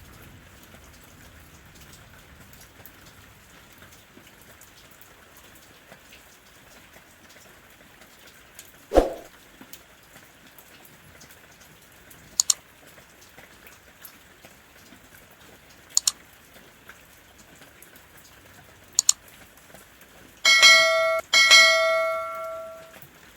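Steady rain falling, with scattered sharp drip ticks and one heavier drop about nine seconds in. Near the end come two loud ringing strikes in quick succession with a bell-like tone, each fading over a second or two.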